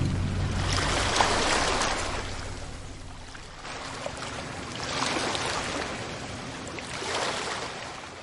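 Water washing and rushing in slow swells, three surges that fade overall. This is the tail of a ship-hitting-iceberg sound effect, and the low rumble of the impact dies away in the first second.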